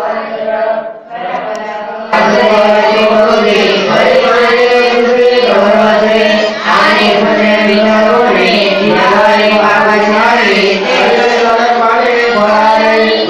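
Several voices chanting a devotional scripture recitation together in a sing-song melody, the lines held and bending in pitch. The chanting turns much louder and fuller about two seconds in.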